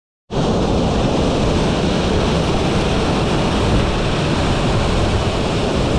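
Waterfall pouring into churning white water, a loud, steady rush that starts a moment in.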